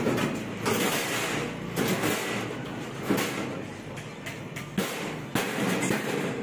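Large thin galvanized steel sheet sliding and scraping across the bed of a sheet-metal machine as it is pushed into place, in uneven swishes with a few sharp knocks.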